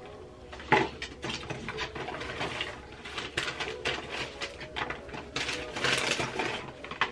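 Quick irregular clicks, taps and rustles of small items being handled close by, busiest about six seconds in, over a faint steady hum.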